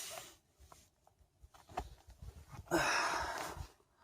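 A person breathing close to the microphone: a short breath right at the start, a few faint handling clicks, then a longer breath out about three seconds in.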